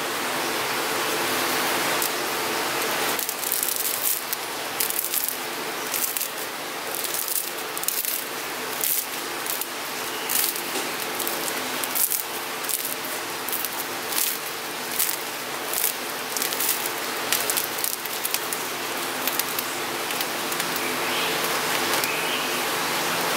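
Crisp crust of a mini Vietnamese baguette (bánh mì) crackling as hands squeeze and tear it open: many small, irregular crackles over a steady hiss.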